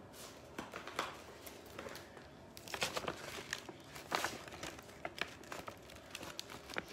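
A paper gift bag and its tissue paper crinkling and rustling as they are handled, in an irregular string of short crackles.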